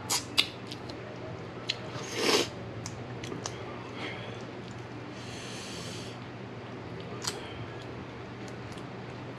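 Close-miked eating sounds: wet lip smacks and a slurp of sauce from a shell-on shrimp. Then scattered small clicks as the saucy shrimp shells are pulled apart by hand.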